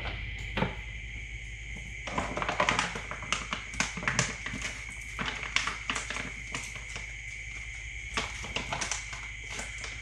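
Plastic pouch of cooking oil crinkling and crackling in the hands as it is handled and tipped over a frying pan: a string of irregular sharp crackles from about two seconds in to near the end. Under it runs a steady faint high-pitched whine.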